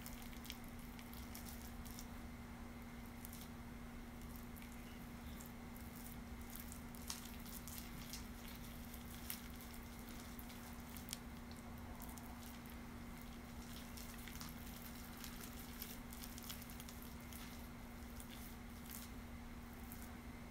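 Faint wet squishing and scattered light clicks of hands working henna paste into short hair, over a steady low hum.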